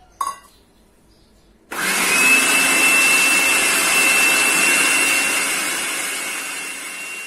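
Electric food processor starting up about two seconds in and running steadily with a high whine as it blends biscuit crumbs and butter into a crumble. Near the end it slowly tails off.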